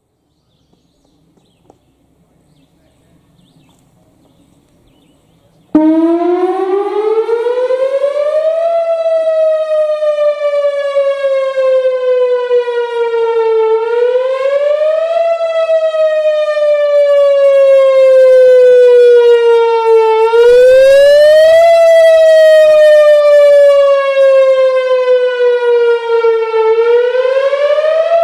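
Whelen Vortex R-4 rotating electronic outdoor warning siren starting a wail, about six seconds in. It comes on abruptly and loud, then its pitch rises quickly and falls slowly over and over, peaking about every six and a half seconds, with a rich, buzzy tone.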